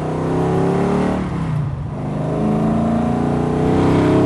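1966 Ford Galaxie's V8 engine accelerating hard, rising in pitch, with a drop about a second and a half in as the transmission shifts up, then rising again.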